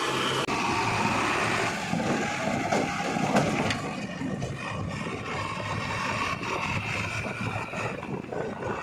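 Heavy diesel earth-moving machinery running and working. A cluster of knocks and clatter comes about three seconds in.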